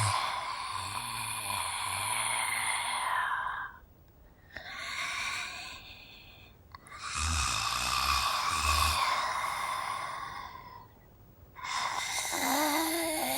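Female zombie vocal sound effects: drawn-out breathy, rasping growls and moans in three stretches, with short pauses about four seconds in and about eleven seconds in.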